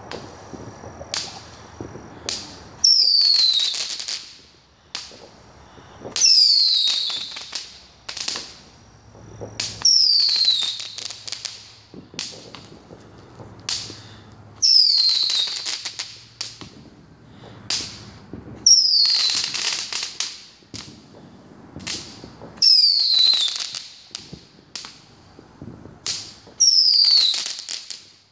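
Fireworks going off seven times, about every four seconds. Each is a loud whistle that falls in pitch over about a second, with crackling, and sharp pops come in between.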